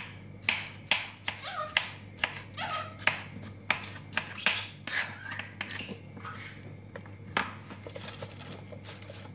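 Kitchen knife slicing cucumber on a cutting board: a run of sharp chopping strokes about two a second, thinning out after about six seconds.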